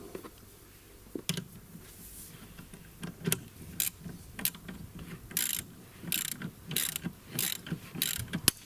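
Hand ratchet wrench clicking in short strokes as it winds down the spindle of a wiper-arm puller, the strokes coming closer together in the second half. A sharp click near the end is the wiper arm breaking loose from its shaft.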